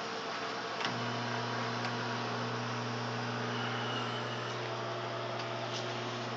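Microwave oven running: a steady low electrical hum. A click comes about a second in, after which the hum is louder.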